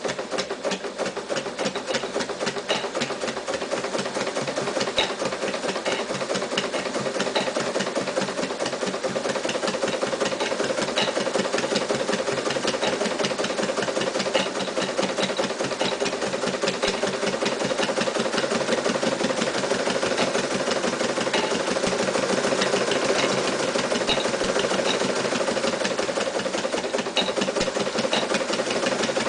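Mitsubishi MAZ4 electric sewing machine running steadily at speed: a steady motor hum under a rapid, even clatter of the needle stitching.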